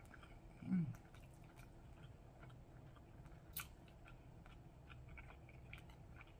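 A person chewing a mouthful of crispy fried chicken up close, with faint wet mouth clicks and small crunches scattered throughout. A short falling 'mm' hum comes near the start.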